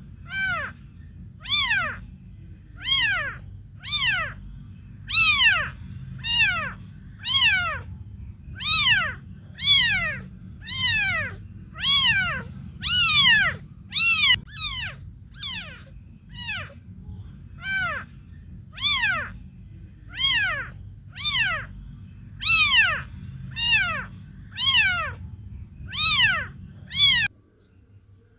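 Kitten meowing over and over: about twenty short, high calls, each falling in pitch, roughly one every second and a bit, over a steady low rumble. Calls and rumble stop together near the end.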